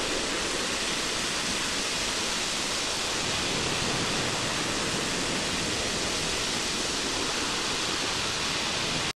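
A steady, unchanging hiss of static-like noise, even from low to high pitch, that cuts off abruptly near the end.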